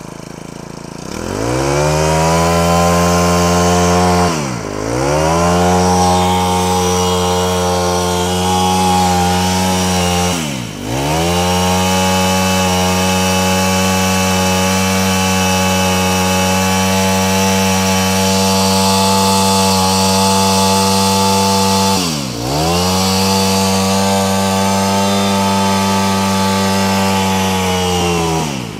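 Honda GX25 25 cc four-stroke brush cutter engine revved up to full throttle about a second in and held there. The throttle is let off briefly three times, the revs dipping and climbing straight back. Right at the end it drops back toward idle.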